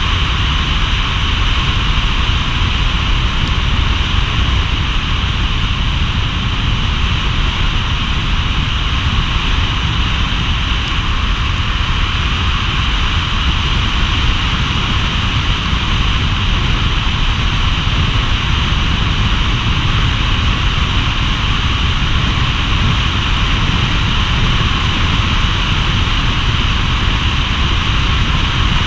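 Steady rumble and hiss of a car driving on a wet road: tyre noise on wet pavement mixed with wind noise on the camera, constant without a break.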